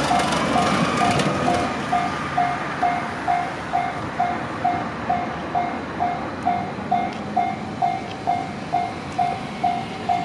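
Japanese railway level crossing warning alarm ringing, a repeated electronic bell tone at a steady rate of about two strokes a second. Under it runs the noise of a passing vehicle, loudest in the first two seconds and then easing off.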